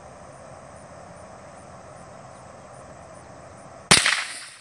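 A single shotgun blast about four seconds in, loud and sudden, with a short ringing tail as the can of airsoft gas on the target is hit. Before it, only a steady faint outdoor hiss.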